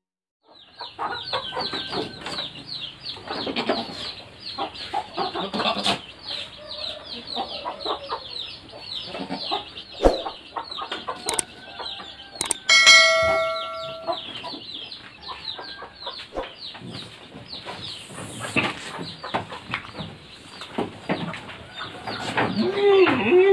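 Chickens clucking and cheeping without pause, a rapid run of short falling chirps, with a single held pitched call a little past halfway.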